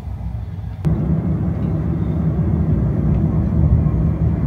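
Electric Tesla Cybertruck on the move: a steady low rumble of road and wind noise heard from inside the cab, which jumps louder about a second in.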